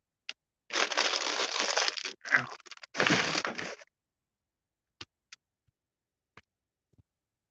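Two bursts of rustling, crinkling noise, the first about a second and a half long and the second shorter, followed by a few faint clicks.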